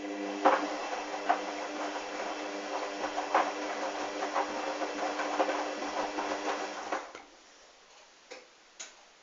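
Hoover washing machine's motor turning the drum during the wash: a steady motor hum with the wet towels and sudsy water tumbling and knocking inside. The motor stops about seven seconds in, followed by two short clicks.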